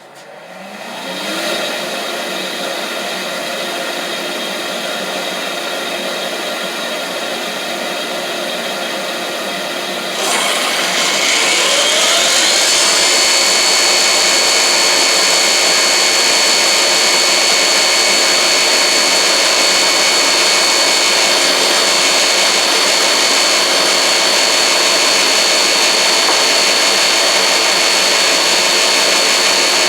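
Dust-collection vacuum switched on, winding up to a steady rushing run. About ten seconds in, the Shopsmith's motor starts on top of it, its whine rising over a couple of seconds and then holding steady and high as the saw runs up to speed for a rip cut.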